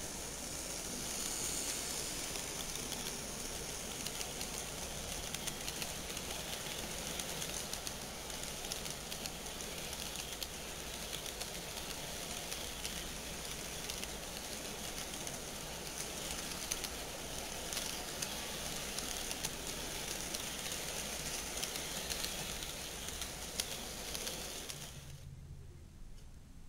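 HO scale model freight train running along floor-laid sectional track: a steady rumble and hiss with many small clicks of wheels over the rail joints, stopping abruptly near the end.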